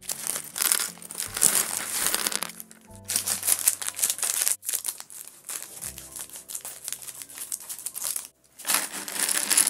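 Thin plastic LEGO parts bag crinkling as it is handled and opened, with background music underneath.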